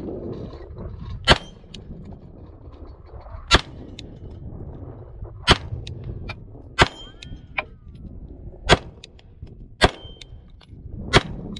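Glock 19 9mm pistol fired unsuppressed, seven single shots spaced one to two seconds apart. A couple of the shots are followed by a short metallic ring.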